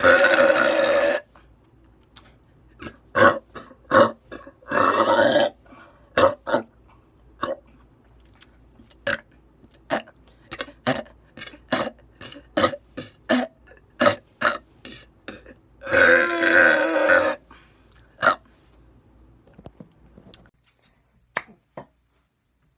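A woman burping loudly: three long burps of about a second each, at the start, around five seconds in and around sixteen seconds in, with many short, sharp sounds between them.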